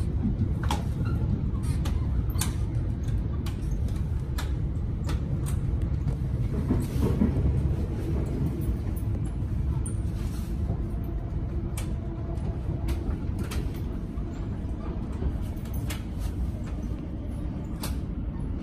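Melbourne Metro suburban electric train running along the track, a steady low rumble with sharp clicks about once a second as the wheels pass over the rails.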